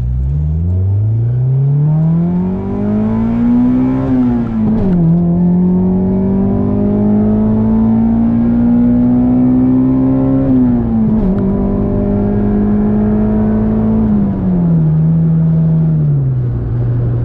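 Acura Integra GS-R's 1.8-litre DOHC VTEC four-cylinder through an aftermarket Yonaka exhaust, heard from inside the cabin. It accelerates hard with the revs climbing steeply, drops sharply at a gear change about four and a half seconds in, and pulls up again more slowly. A second shift comes at about ten seconds, then the revs ease down and settle steady near the end.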